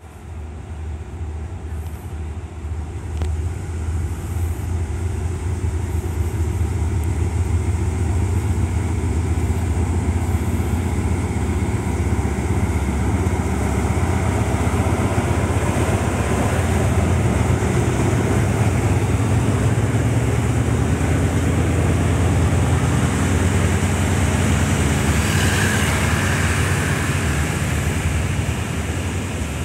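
Hitachi HID diesel-electric locomotive pulling out, its diesel engine running with a deep steady drone that grows louder as it draws alongside. Then the passenger carriages roll past, wheels running on the rails.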